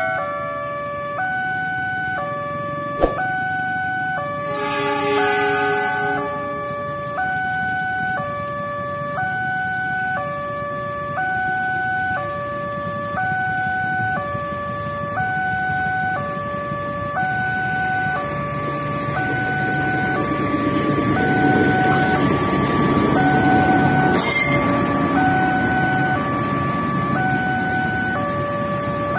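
Railway level-crossing alarm sounding from the loudspeaker on the signal post: a repeating two-tone electronic chime, the notes alternating about every 0.6 s. From about two-thirds of the way through, the rumble of a passenger train approaching and passing the crossing builds under it.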